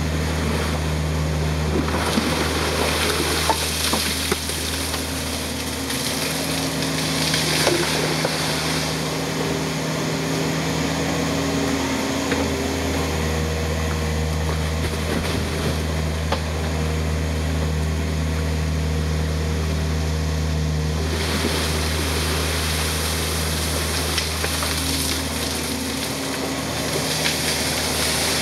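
Yanmar ViO55 mini excavator's diesel engine running steadily as the machine digs, its tone shifting a few times as the hydraulics work the boom and ditching bucket. A few knocks from the bucket among stones in the first several seconds.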